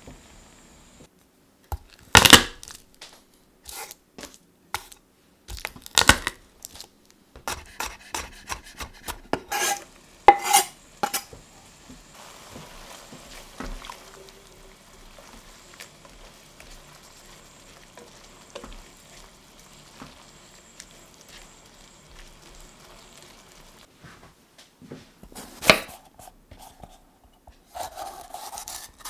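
A spatula knocking and scraping against a stainless steel sauté pan as onions are stirred in red wine: a few sharp knocks among quicker clicks, then a long stretch of faint steady sizzling from the simmering pan. Another knock comes near the end, followed by a knife starting to slice a red bell pepper on a wooden chopping board.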